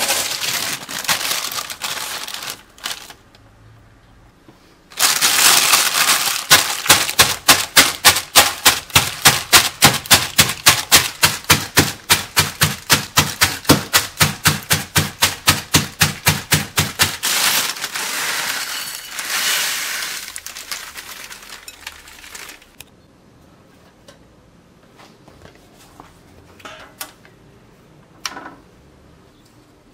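Cornflakes in a plastic bag being crushed on a wooden cutting board, pounded with the base of a small cup in a steady run of sharp blows, about four a second for some twelve seconds. Plastic-bag rustling comes before and after the pounding.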